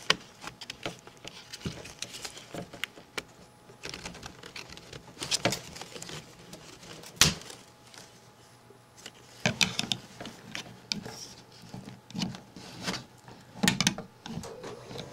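Scattered clicks, taps and light rattles of a plastic mini blind tilter and its metal tilt rod being handled, slid and fitted into the headrail, with one sharp click about seven seconds in.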